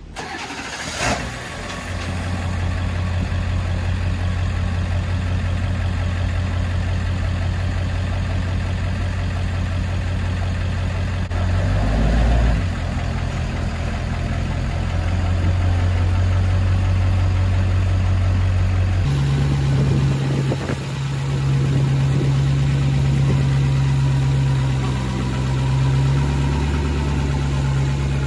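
2001 Ford 7.3 Powerstroke turbo-diesel V8 of a lifted pickup idling steadily, after a short sharp knock about a second in. About two-thirds of the way through, its note steps up to a higher, steady speed as the truck pulls the hitched travel trailer away.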